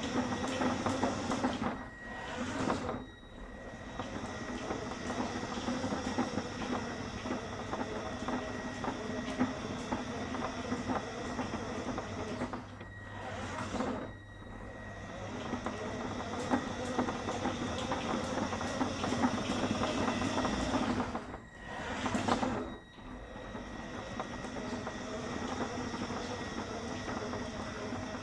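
Radio-controlled Mini Cooper S toy car driving round, its electric motor and drivetrain running with a steady high whine and a rapid rhythmic knocking. The owner thinks the knocking comes from a flat spot on one tyre, made louder by the body shell. The running eases off briefly three times.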